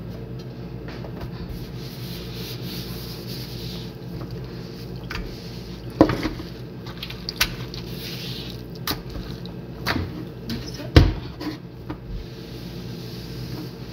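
A cloth towel rubbing and wiping a stone kitchen countertop, with several sharp knocks on the counter, the loudest about six and eleven seconds in, over a steady low hum.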